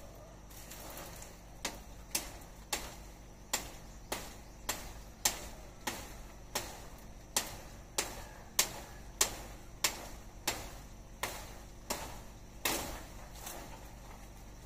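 Bolo knife hacking at woody tree branches: about twenty sharp chops, roughly two a second, starting about two seconds in and stopping shortly before the end.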